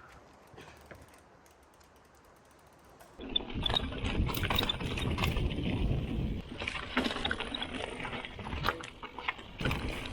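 2021 Giant Talon 2 mountain bike being ridden on a dirt trail: tyre noise with rattling and rapid ticking from the drivetrain. It starts about three seconds in, after near quiet.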